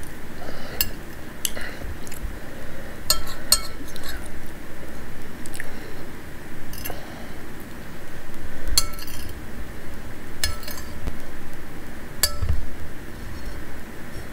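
A metal spoon clinking and scraping against a bowl of pozole, about nine sharp clinks a second or two apart, with chewing in between.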